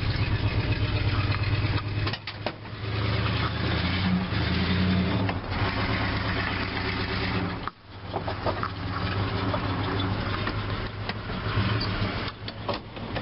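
1974 Dodge truck's 1971 318 V8 with a two-barrel carburettor running under way, heard from the cab, its pitch shifting up and down, with a short dip about eight seconds in. The driver suspects the transmission is a little low on oil.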